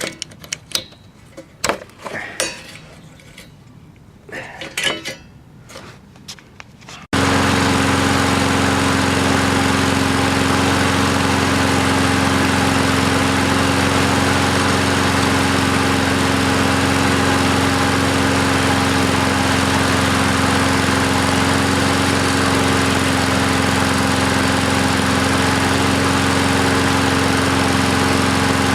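Scattered clicks and knocks of hand work for about seven seconds, then the Cub Cadet mower's 173cc OHV engine comes in suddenly and runs steadily at a constant speed. It is running on its new carburetor with a replacement spark plug, after quitting on the old plug.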